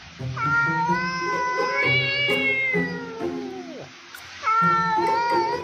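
A cat giving two long, drawn-out meows, the first ending in a falling glide, over background music.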